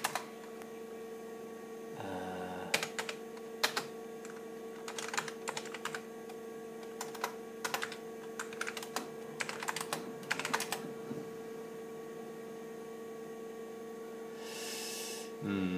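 Keystrokes on an IBM PC XT keyboard: irregular clusters of sharp clicks as a command is typed, over the computer's steady hum. A short hiss comes near the end.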